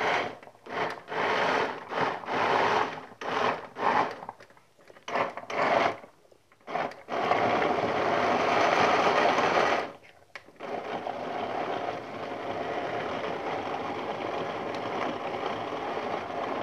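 Countertop blender with a plastic jar grinding a thick, chunky load of raw onion and tomato with a little water. It runs in about a dozen short pulses, then for about three seconds straight, stops briefly, and then runs steadily at a lower level while the contents are pushed down onto the blades.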